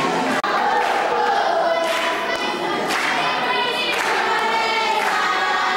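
A large group of voices singing together as a choir, with a short break in the sound about half a second in.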